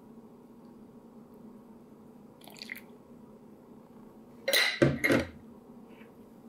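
Black measuring cups and spoons clattering on a wooden table as they are set down: a quick cluster of clacks about four and a half seconds in, the loudest sound here. A faint low hum runs underneath.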